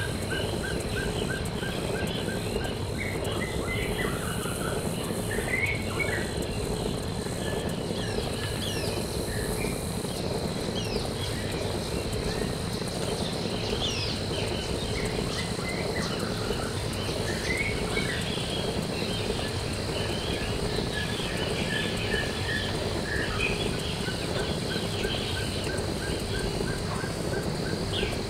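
Jungle-style ambience: many short bird chirps and calls, including runs of quick repeated pips, over a steady high insect whine and constant low background noise.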